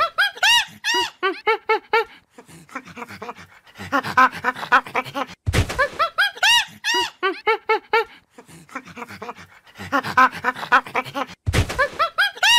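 Monkey calls from a sound effect: rapid series of short, high calls, each rising and falling in pitch, with a short harsh burst about every six seconds as the same cycle repeats.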